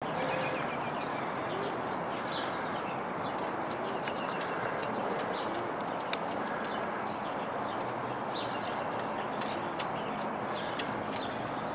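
Small birds chirping, many short high chirps over a steady background hiss, with a few sharp clicks in between.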